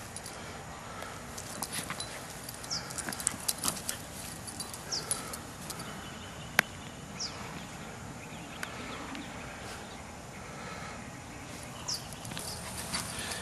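Irregular light clicks and rustling from footsteps and a small dog's movements on dry grass, with a few brief high chirps.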